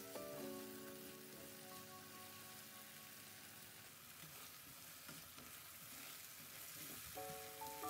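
Masala paste sizzling softly as it fries in oil in a pan, stirred with a spatula. Background music fades out in the first second and comes back about seven seconds in.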